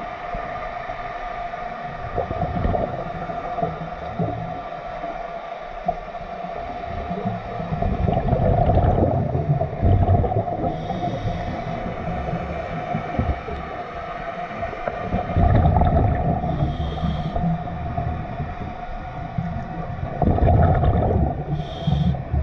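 Underwater sound of a scuba dive: a steady hum of motorboat engines carried through the water. Over it, a diver's regulator breathing and bubble bursts swell up about every five to six seconds.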